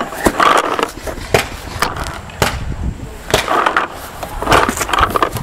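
A string of sharp, irregular knocks and pops, one or two a second, over the rustle of a paintball player on the move with his marker.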